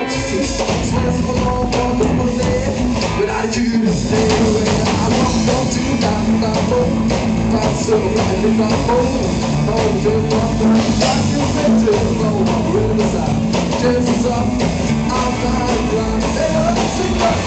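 Live rockabilly band playing: upright double bass, electric guitar and drum kit, with a sung vocal over them.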